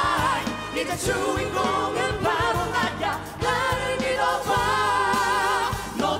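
Live pop song: several vocalists singing together over a full band with drums and bass.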